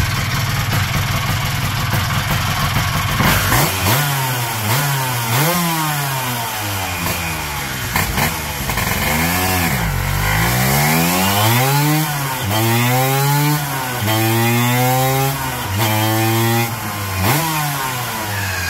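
Tuned two-stroke scooter engine with an EGIG 180 kit and Unisex exhaust, idling steadily for about three seconds and then revved again and again. It starts with short quick blips, and from about halfway the revs are held longer, the pitch climbing and falling each time.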